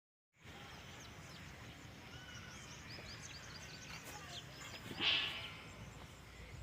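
Small birds chirping, many short quick high chirps over a steady background hiss, with one louder, harsher sound about five seconds in.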